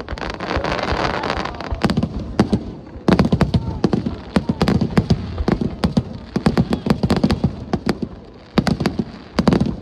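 Aerial fireworks bursting in rapid volleys of sharp bangs and cracks. A dense crackle fills the first two seconds, with short lulls about two seconds in and again near the end.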